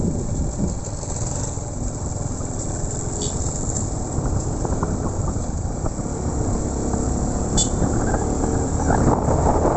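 Motorcycle engine running steadily while riding, mixed with wind and road noise. Two faint short ticks, about three and seven and a half seconds in.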